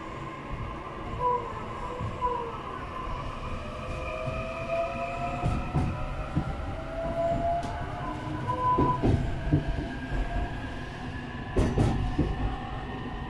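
JR East E531 series electric train accelerating away from a station, heard inside the car: the inverter-driven traction motors whine in several tones that rise steadily in pitch. Under the whine are a running rumble and occasional wheel knocks over rail joints.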